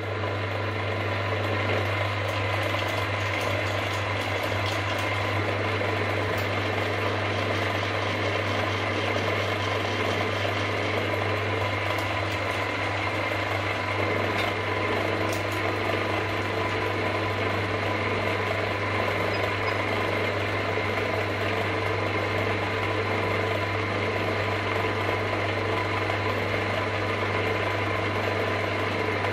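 Milling machine spindle running steadily while a drill bit bores a hole in a metal crank web blank clamped in the vise.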